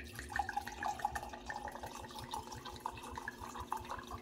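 Red wine being poured from a glass bottle into a stemmed wine glass: a steady stream with rapid glugs from the bottle neck.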